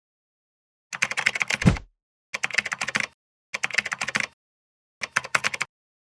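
Keyboard-typing clicks in four quick bursts of under a second each, with dead silence between them.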